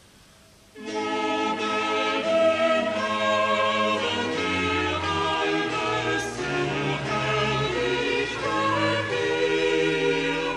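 Choir singing with orchestral accompaniment, starting suddenly about a second in after a brief near-silent gap.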